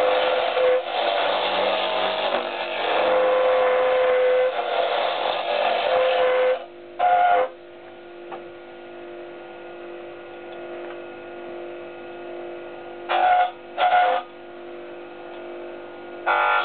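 Small wood lathe spinning a mahogany blank as a turning tool cuts it: a loud scratchy cutting noise over the motor's hum. About six and a half seconds in the cutting stops, leaving the lathe's steady hum, broken by three brief cuts, until cutting resumes near the end.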